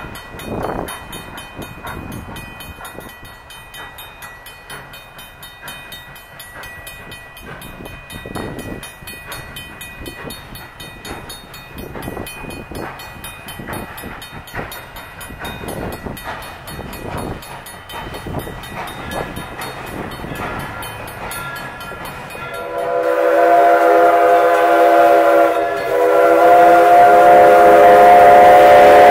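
Steam locomotive CNJ 113, a 0-6-0 switcher, working with exhaust chuffs as it approaches. About 23 seconds in, its chime whistle sounds a loud blast of several tones together, breaks briefly and sounds again.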